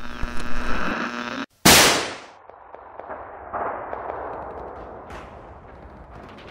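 Outro sound effects: a buzzing tone that cuts out abruptly, then a single loud, gunshot-like bang about a second and a half in that dies away over half a second, followed by softer scattered hits over a hiss.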